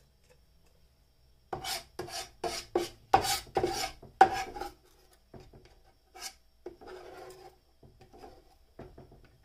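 Knife blade scraping diced onion and garlic across a plastic cutting mat on a wooden board. It makes a quick run of about seven scrapes, the loudest in the middle, then a few softer scrapes.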